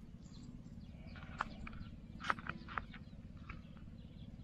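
Outdoor field ambience: a steady low rumble, with a handful of short, sharp clicks or chirps scattered through it.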